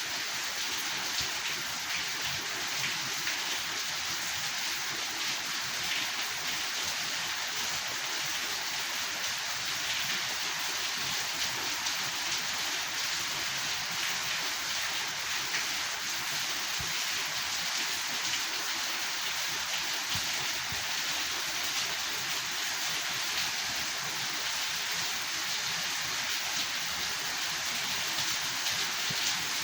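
Steady rain falling, an even hiss of many drops with faint scattered patters.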